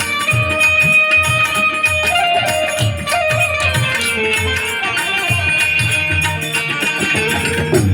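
Instrumental break in Indian folk devotional music: a melody instrument plays a wandering tune over sustained tones, with a steady hand-drum beat and rattling percussion.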